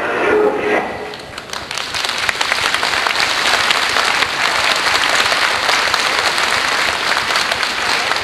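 The last notes of music fade in the first second, then an audience applauds steadily. The applause cuts off suddenly at the very end.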